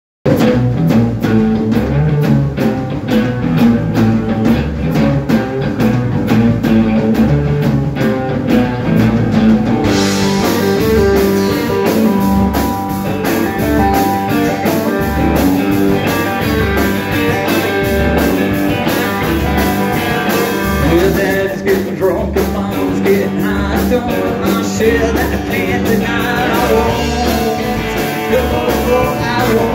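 Live rockabilly band playing: electric guitars, bass and a drum kit with a steady beat. The sound fills out and gets brighter about ten seconds in.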